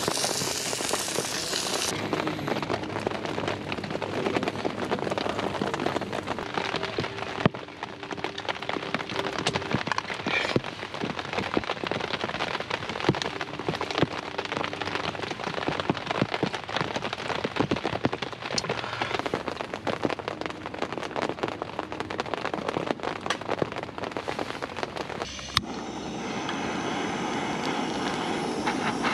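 Heavy rain pattering on a tent, heard from inside as a dense, irregular crackle of drops. It opens with a couple of seconds of burger patties sizzling on a griddle. Near the end the rain gives way to the steady hiss of a gas blowtorch being used to light a campfire.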